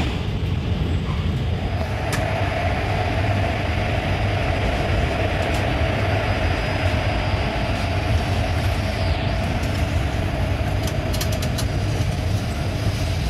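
Passenger train running on the rails: a steady, loud rumble of wheels and coach, with a steady whine that comes up about two seconds in and a few faint clicks near the end.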